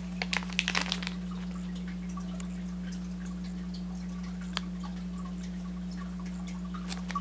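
A plastic packet of wipes crinkling as it is handled, in a quick cluster of crackles in the first second, with one more click about halfway, over a steady low hum.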